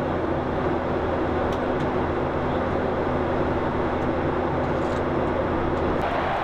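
Steady in-flight cabin noise of a Boeing 737-800: an even rush of airflow and engine noise with a low, constant hum beneath it.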